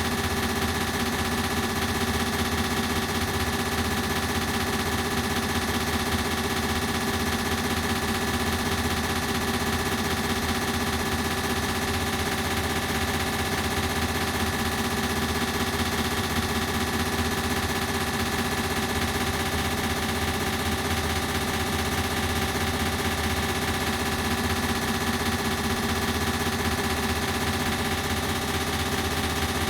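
Ceiling fan running steadily, heard through an added echo effect. It gives a constant hum of several held tones over a fast, even flutter.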